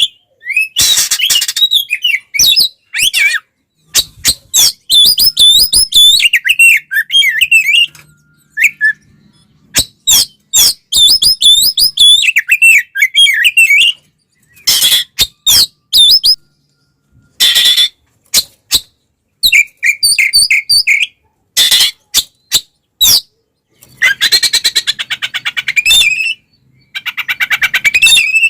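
Oriental magpie-robin singing an agitated fighting song: quick whistled warbling phrases mixed with sharp clicks and harsh rasping rattles, broken by short pauses. A long rasping stretch comes near the end.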